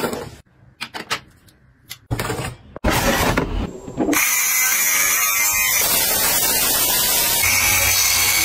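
For about four seconds there are scrapes and knocks as a cleaver blade slits the tape on a cardboard box. Then an electric fabric shaver (lint remover) switches on and runs steadily on a knit sweater, a motor hum with a high whine and hiss.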